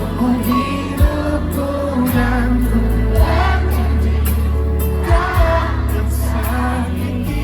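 Live band playing a pop ballad with singing over a steady heavy bass and a few kick-drum hits.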